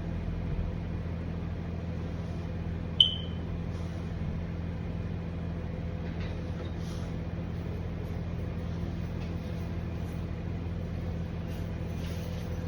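Handheld hair blow dryer running steadily with a constant hum. About three seconds in there is one sharp click with a brief high ping.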